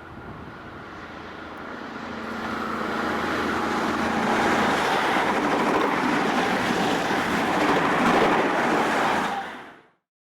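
NSW Countrylink XPT diesel passenger train approaching and passing at speed: engine and wheel noise growing louder over the first few seconds, staying loud, then cutting off suddenly near the end.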